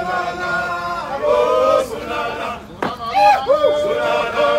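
A group of men chanting a drill song together, with long held notes that then break into shorter rising and falling phrases. A single sharp knock sounds a little past halfway.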